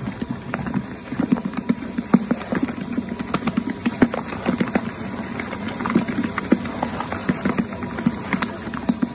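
Electric mochi-making machine kneading steamed glutinous rice: the dough ball tumbles and slaps against the bowl in quick, uneven thuds, several a second, over the steady hum of the motor.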